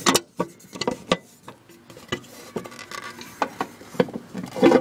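Scattered clicks and knocks from hands working an old Dexter film projector's release button and casing, with a sharp click right at the start and a cluster of knocks near the end.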